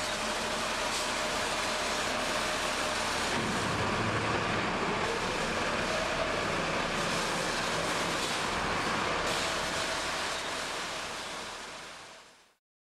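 Steady noise of passing road traffic, fading out shortly before the end.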